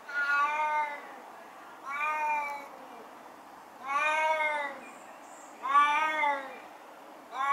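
An elderly, deaf and blind Siamese cat meowing loudly and repeatedly. Each call is long and drawn out, rising and then falling in pitch, and they come about every two seconds, with a fifth beginning near the end.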